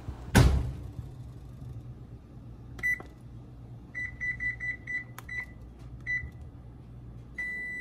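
A heavy thud as the oven door closes, then a range's touch control panel beeping as its buttons are pressed to set a 6-minute timer: a single beep, a quick run of about five beeps, two more, and a longer steady beep near the end as Start is pressed. A faint steady low hum runs underneath.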